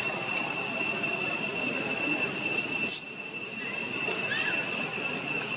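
Steady, high-pitched drone of insects, with a sharp click about three seconds in and a faint short squeak from a baby macaque a little later.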